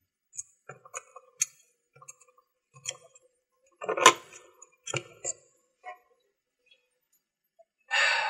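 Scattered small clicks and taps of a hand handling keys and a dollhouse, with the loudest knock about four seconds in. A short burst of noise comes near the end.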